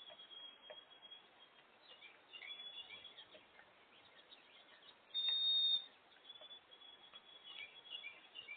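Small wild birds chirping and twittering in short, high notes, with one louder, steady high whistled note held for about half a second a little past the middle.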